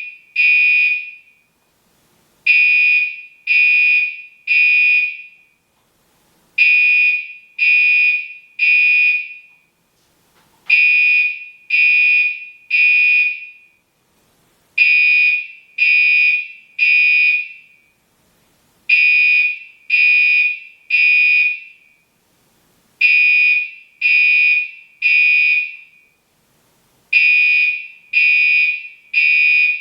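Gentex Commander 3 (GEC3-24WR, 24 VDC) fire alarm horn sounding a loud, high-pitched tone in groups of three short blasts, one group about every four seconds. This is the temporal-three evacuation pattern.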